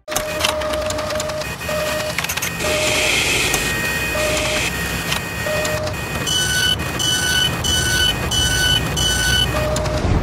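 Sound effects for an animated machine on rails. A steady mechanical rumble with clicks and clanks runs throughout, with a short low tone sounding on and off. From about six seconds in, a run of six higher two-tone beeps plays, each about half a second long.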